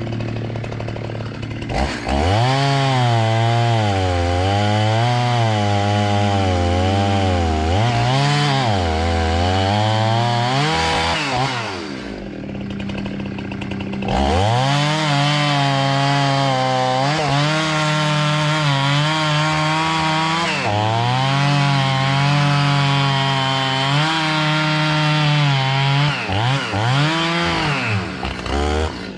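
Two-stroke chainsaw with a freshly sharpened chain revving up and cutting wood, its engine pitch dipping and recovering under load. It drops back to idle for a couple of seconds midway, then cuts again. A steady low hum runs underneath.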